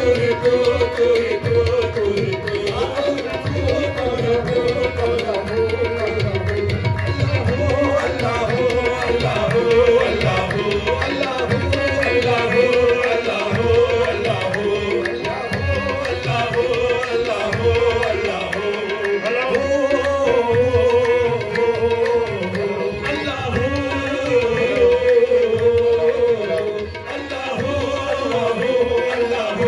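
Qawwali music: tabla playing a steady rhythm under a sustained, wavering melody line.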